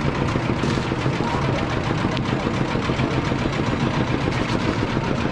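An engine idling close by: a steady, rapid pulsing that runs on without a break.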